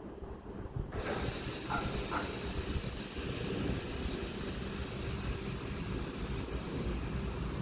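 CSX freight train rolling past: a steady rumble of the cars with a wide hiss that sets in suddenly about a second in, and two short high squeaks soon after.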